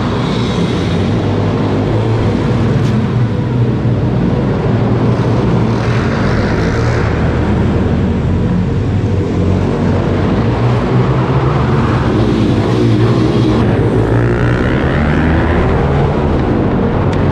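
Pit bike engine running close to the microphone, its revs rising and falling in the second half as it is ridden.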